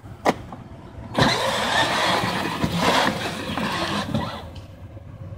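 Battery-powered ride-on toy Jeep driving forward over grass, its electric drive motors and gearbox running with a steady whir. It starts about a second in and eases off after about four seconds, after a brief click just before it starts.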